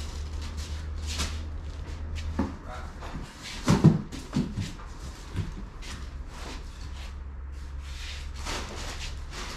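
Cardboard boxes and parts being handled at a metal tool chest: rustling, light clicks and a few knocks, the loudest about four seconds in, over a steady low hum.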